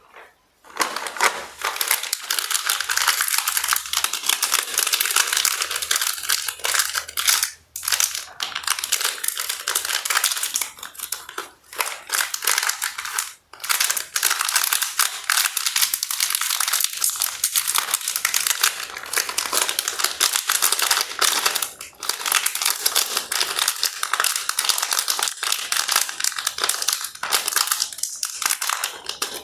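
Plastic candy and snack wrappers crinkling and rustling continuously as packets are handled and torn open.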